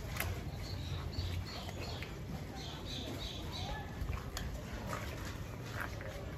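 A wet dog being scrubbed and rinsed by hand, with small splashes and wet rubbing, over a steady low rumble. Birds chirp in the background, a run of short high chirps a second or so in that lasts a few seconds.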